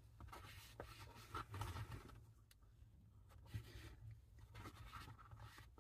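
Faint handling noise of small hand tools, screwdrivers and screwdriver bits, being sorted: soft rustling with a few light clicks scattered through, the sharpest about two and a half seconds in.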